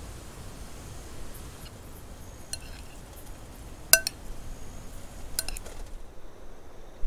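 Glass clinking as a small glass jar of dressing knocks against a glass salad bowl. There is a soft tap about two and a half seconds in, one sharp clink that rings briefly about four seconds in, then a few lighter clinks about a second and a half later.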